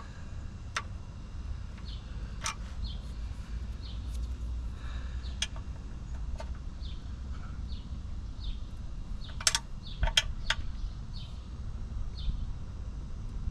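Scattered sharp metal clicks and clinks of vice grips gripping and slipping on a stripped oil drain plug, with a quick group of three about nine and a half seconds in. A low steady rumble runs underneath.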